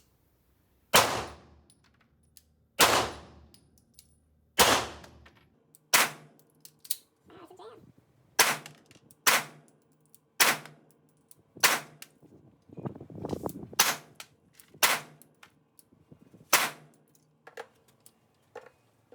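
A Beretta M9 9mm pistol fired about eleven times, single shots one to two seconds apart, the first about a second in, with a few fainter pops in between.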